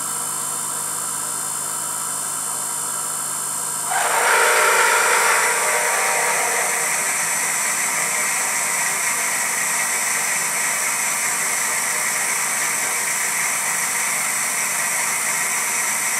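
1986 Emco F1 CNC milling machine drilling cast iron with a 6.1 mm drill: the spindle hums steadily, and about four seconds in a loud, even cutting hiss sets in as the drill bites into the metal. The hiss holds steady from then on.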